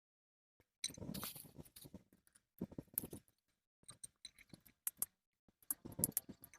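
Irregular clicks, snips and short scrapes of small parts and tools being handled in repair work, starting about a second in.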